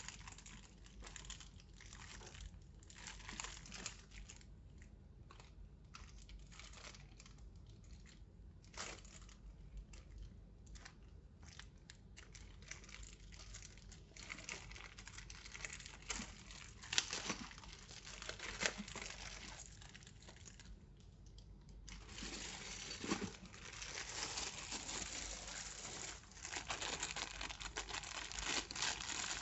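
Packaging crinkling and rustling as it is handled during an unboxing, with a few sharp clicks about halfway through and denser crinkling in the last third.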